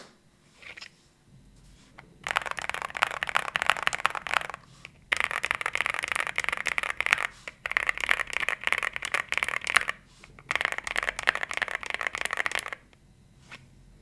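Typing on a CIDOO V65 aluminum-case mechanical keyboard with Carda switches: four runs of fast keystrokes, each about two seconds long, separated by short pauses, after a quiet opening second or two.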